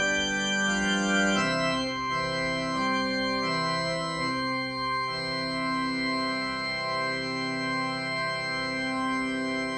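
Kurzweil digital keyboard played with an organ voice: slow, sustained chords closing a Catholic hymn, changing chord about a second and a half in, then a long held final chord with the bass moving beneath it, released at the very end.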